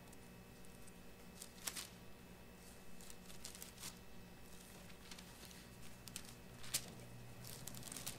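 Faint rustling and crinkling of thin Bible pages being leafed through to find a passage, in short scattered bursts over a steady low room hum.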